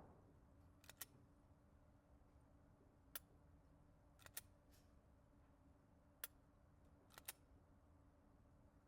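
Near silence, broken by a few faint, sharp clicks scattered irregularly, some in quick pairs.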